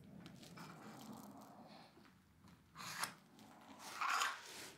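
Light scraping and rubbing of a steel combination square being slid and set against a pine board for marking out, with two louder scrapes about three and four seconds in.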